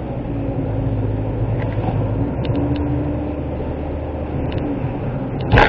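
Suzuki Wagon R's 660 cc three-cylinder engine running steadily at cruising speed, heard from inside the cabin with road and tyre noise on a wet road. A single sharp knock sounds near the end.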